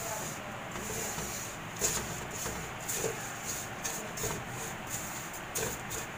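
Silicone spatula stirring dry vermicelli roasting in ghee in a steel pan: a continuous dry rustling scrape, with a few louder scrapes against the pan about every second or so.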